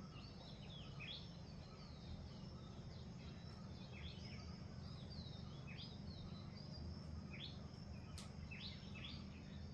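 Several birds chirping, a dense run of short, quick, falling notes, over a faint low steady rumble. A single sharp click sounds about eight seconds in.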